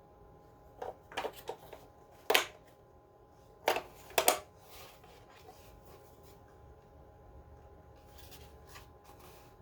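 Handling noise from a plastic smoke alarm: a string of short, sharp clicks and knocks, the loudest three between about two and four and a half seconds in, then only a few faint taps near the end.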